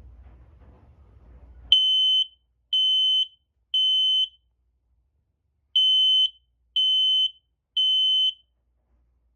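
Smoke alarm sounding on its test button: a high-pitched beep three times, a short pause, then three more beeps, which is the standard three-beep alarm pattern. The beeps start about two seconds in.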